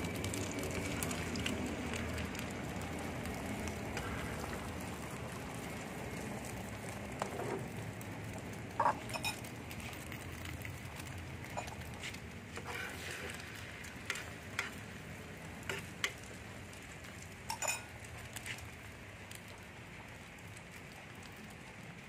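Egg and onion frying in a small pan, a steady sizzle that slowly grows quieter, with a metal spoon clinking and scraping against the pan about a dozen times through the middle.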